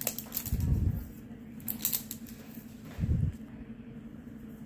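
Clear plastic shrink wrap being picked at and peeled from a plastic slime tub: a few sharp crinkles and clicks, with low bumps from the tub being handled about half a second in and again around three seconds.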